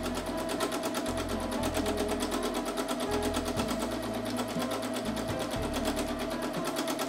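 Domestic sewing machine running steadily at speed for free-motion stitching, its needle going in a rapid, even rhythm over a steady motor whine.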